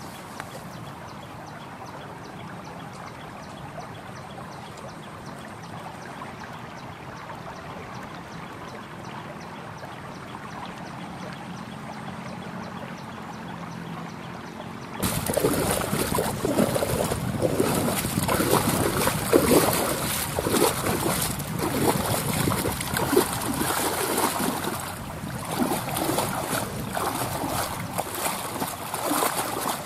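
Shallow river flowing steadily. About halfway through it gives way to loud, uneven sloshing and splashing as a bare foot churns the sandy riverbed under the water, digging for freshwater clams.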